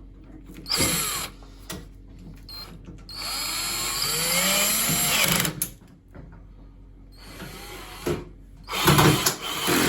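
Cordless power screwdriver driving the top screws of a washing machine's front panel back in, in several short runs, the longest about two and a half seconds, its motor whine rising and falling.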